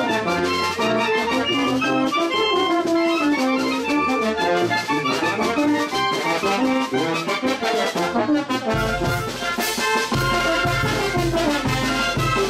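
Wind band playing a son: clarinets and brass carry the melody, and about nine seconds in a deep bass line from the tubas comes in with a steady beat.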